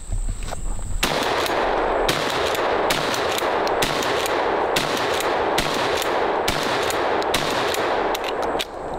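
Tokarev USA TX3 pump-action 12-gauge shotgun firing birdshot in rapid fire. The shots come about once a second, starting about a second in, with the pump worked between them.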